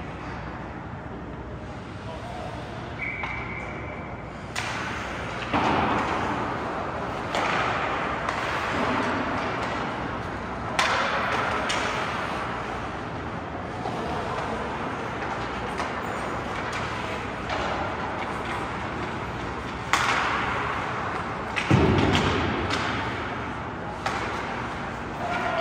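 Ice hockey play in an arena: irregular sharp knocks and thuds of sticks, puck and boards, each with a ringing echo, over a steady background noise. A brief steady whistle-like tone sounds about three seconds in.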